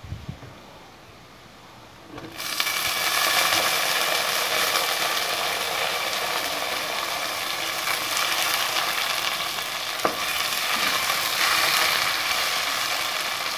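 Tomatoes and onions frying in hot sesame oil in a clay pot: a loud sizzle starts suddenly about two seconds in, as the tomatoes go into the oil, and keeps going while a ladle stirs the pot.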